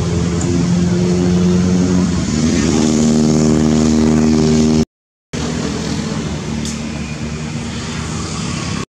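A motor vehicle engine running steadily, its pitch shifting up a little about two and a half seconds in. The sound drops out completely for about half a second near the middle, then a rushing noise without the engine tone carries on.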